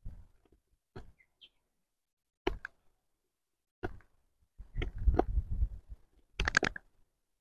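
Morakniv Companion knife blade shaving curls down a dry stick to make a feather stick: a few separate short scraping strokes, then quicker runs of them in the second half. Wind gusts on the microphone add a low rumble in the middle stretch.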